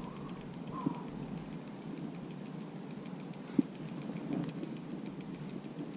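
Steady rushing of creek water, with a few light knocks and one sharp click about three and a half seconds in.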